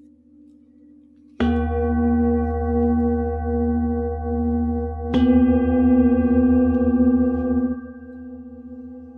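Metal singing bowls struck twice with a padded mallet, about a second and a half in and again halfway through. Each strike rings on as a deep wavering hum with several higher overtones. The ringing drops away sharply a little before the end.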